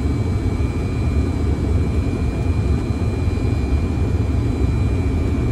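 Steady cockpit noise of a Fokker 100 airliner on final approach: a low rumble and rush of engines and airflow, with a thin steady high whine above it.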